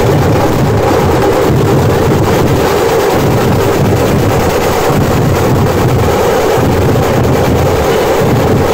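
A Maharashtrian dhol-tasha ensemble drumming: many large barrel dhols beaten with sticks and hands together with tashas played with thin sticks. The drumming is loud and dense, with no gaps.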